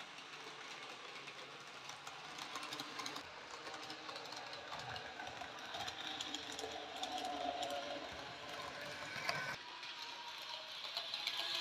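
N-scale model freight train running on its track: the small electric motor of the diesel locomotive whirring and the wagon wheels clicking over the rails. It gets louder near the end as the tank wagons pass close by.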